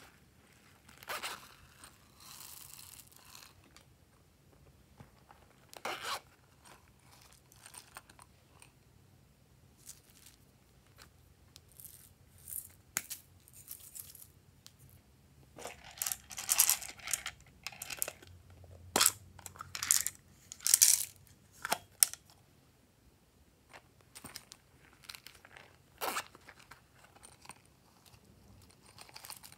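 Small decorations (foam beads, sequins and glitter) being tipped out of a silicone pop-it purse onto slime in a glass dish: scattered rustling, crinkling and sharp clicks, busiest about two thirds of the way through.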